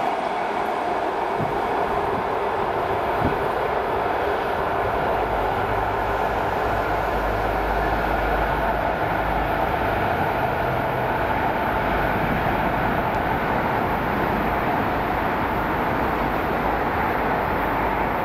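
ET2M DC suburban electric multiple unit running along the track: steady rolling and running noise with a heavier low rumble in the middle, and two short knocks of the wheels over rail joints in the first few seconds.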